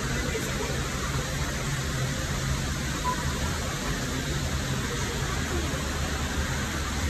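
Steady background hum and hiss, even throughout, with no distinct events.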